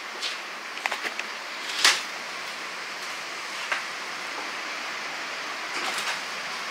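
Steady hiss of room tone with a few short clicks and knocks scattered through it, the loudest about two seconds in.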